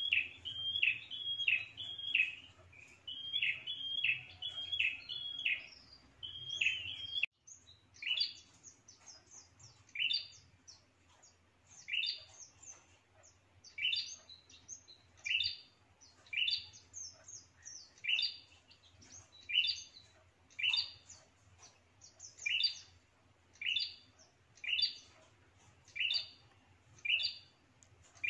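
Caged prenjak songbird calling. Quick runs of sharp chirps for about the first seven seconds, then, after an abrupt break, single sharp calls about once a second.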